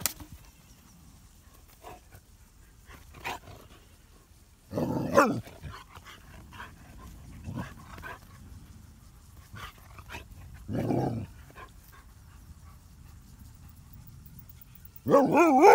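A dog vocalising in three short bouts: a brief whine about five seconds in, a lower growl-like sound around eleven seconds, and a louder wavering whine near the end, with faint scuffling clicks between.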